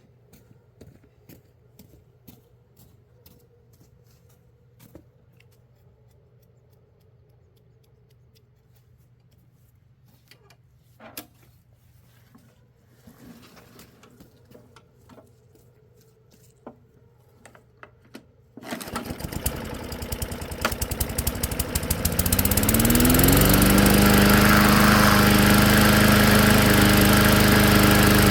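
Faint handling clicks and knocks, then about two-thirds of the way through a lawnmower engine starts abruptly. Its pitch rises over a couple of seconds as it comes up to speed, and it settles into steady, loud running.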